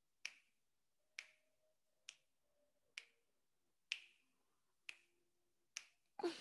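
Seven short, sharp clicks, evenly spaced about one a second, over near silence while the breath is held.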